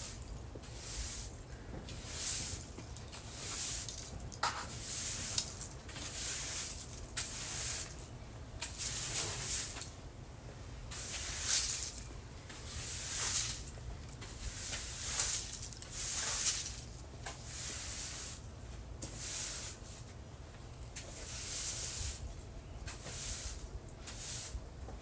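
A broom sweeping fallen leaves, a steady series of swishing strokes at about one a second.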